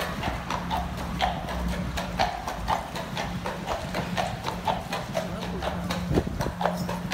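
A carriage horse's hooves clip-clopping at a steady walk on the street, a few sharp clops a second. A steady low hum runs underneath.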